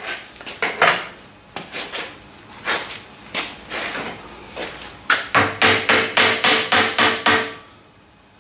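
Metal-on-metal knocks and clicks from parts of a Douglas metal shaper being worked by hand. They come irregularly at first, then, about five seconds in, turn into a quick even run of ringing knocks, about four a second, which stop shortly before the end.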